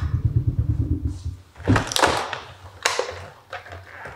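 A wooden kitchen drawer sliding on its runners with a low, fast-pulsing rumble, followed by a few separate knocks and clatters of kitchen things being handled.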